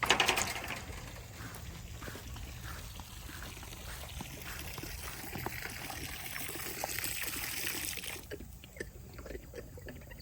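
Water pouring into a container to refill the animals' drinking water. It starts with a loud splash and runs steadily until it stops abruptly about eight seconds in.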